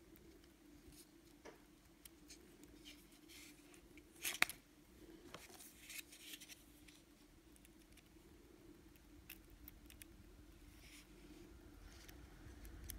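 Faint handling noises: small plastic clicks and taps as an N scale locomotive and a short piece of model track are held and fitted together, with one sharper click about four seconds in, over a faint steady room hum.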